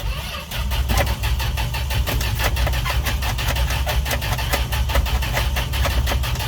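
Dodge D100 pickup engine cranking over on the starter in an even, pulsing rhythm that strengthens about half a second in. This is a hard start after the truck has sat for weeks, powered from a jumper pack.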